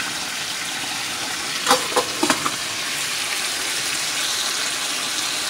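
Pots cooking on a stovetop, a steady sizzling, bubbling hiss from curried chicken browning in oil and a pot of peas at the boil, with a few light clinks about two seconds in.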